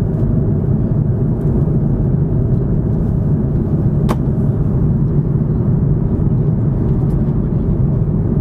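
Steady low roar inside an airliner cabin in flight: jet engine and airflow noise coming through the fuselage. A single sharp click sounds about four seconds in.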